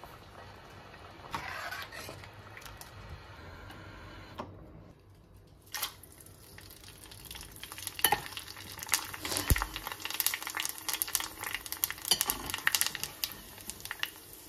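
Hot oil sizzling and crackling as batter is deep-fried in a kadai, starting about six seconds in, with a metal perforated ladle clinking and scraping against the pan. Before that there is a softer steady hiss from a steaming pot of soup.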